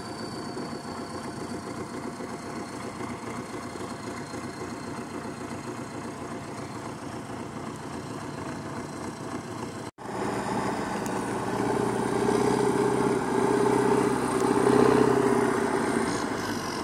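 Belarus tractor's diesel engine running steadily as it pulls a loaded cassava trailer along a dirt track. The sound cuts out for an instant about ten seconds in, then comes back louder, growing stronger toward the end.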